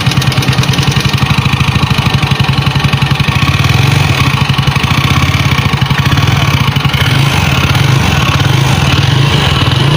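Small two-wheeler engine running steadily, with a fast, even pulsing from its firing.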